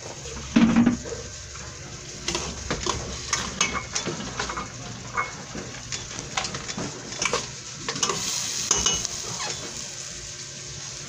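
Chicken liver sizzling in sauce in a stainless steel pan while a spatula stirs and scrapes it, with irregular clicks and clatters of the spatula against the pan. There is a louder thump just under a second in.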